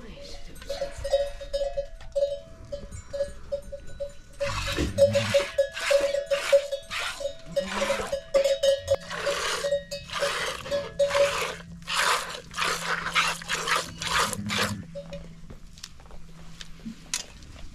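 A goat being milked by hand into a metal pot: squirts of milk hiss into the pot about twice a second, starting about four seconds in. A livestock bell clinks steadily through the first two-thirds.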